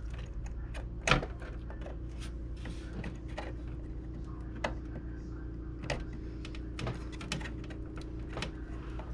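Scattered clicks and knocks of parts being handled and plugged in while a graphics card is fitted into a desktop PC, the loudest knock about a second in, over a steady low hum.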